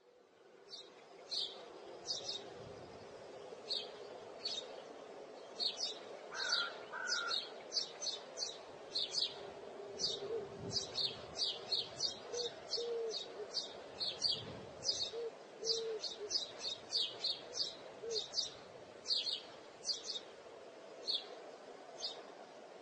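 Birds chirping: many short, high chirps repeating several times a second over a steady low hum, with a few lower, shorter calls in the middle.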